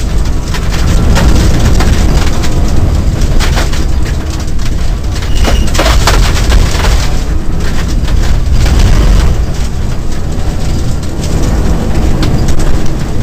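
Cabin noise of a rally car driven hard on a gravel road: a loud, low engine and road rumble, broken by scattered sharp knocks of gravel striking the car.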